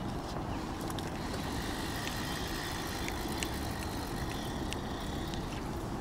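A spinning reel being wound in as a small fish is played: a faint whirr with scattered light clicks, over a steady low background rumble.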